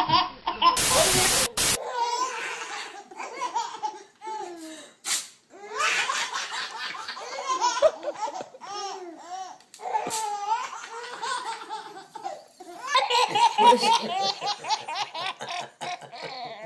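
Babies laughing in a run of short clips: repeated bursts of giggles and belly laughs. A brief rush of noise comes about a second in.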